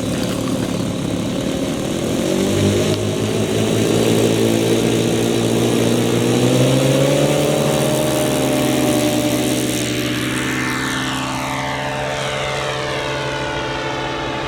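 Radio-controlled model Cessna 337 Skymaster's propeller motors running. The pitch rises over the first several seconds, then the higher tones fall away in the second half.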